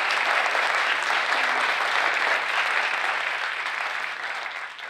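Theatre audience applauding, dense steady clapping that fades away near the end.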